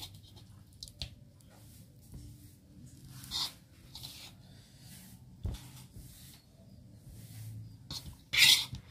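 Scattered light clicks and scrapes of handling at the table, over a faint low hum. Near the end comes a louder, hissy scraping rustle as a hand moves the pieces of charred grilled chicken on the plate.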